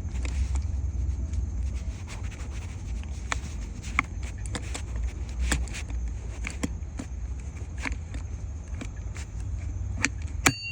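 Scattered clicks, knocks and light scraping from handling steering-wheel and quick-release hub parts, over a steady low rumble. Near the end, a sharp click followed by a short high beep.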